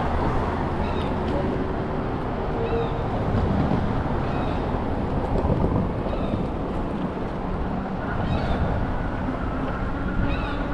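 City street ambience: a steady low traffic rumble, with short high chirps now and then.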